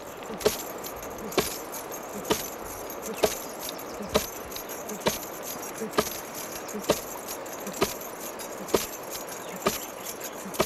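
Long wooden pestle pounding in a mortar by hand, a sharp knock at each stroke, evenly about once a second.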